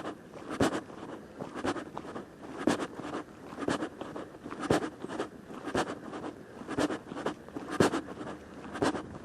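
Footsteps of a hiker walking at a steady pace on a dirt trail, each step crunching, about one strong step a second.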